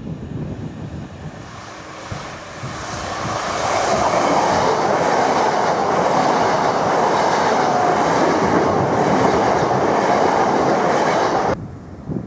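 Class 377 Electrostar electric multiple unit approaching and running past close by. Its wheel-and-rail noise rises over the first few seconds to a steady loud rush, which cuts off suddenly near the end.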